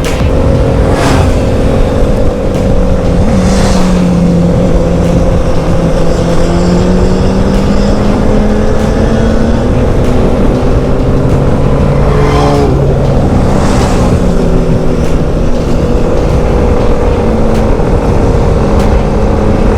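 A vehicle engine running at road speed under heavy wind rumble on the microphone. The engine note holds steady, then drops sharply about twelve seconds in before settling again, with a few short whooshes along the way.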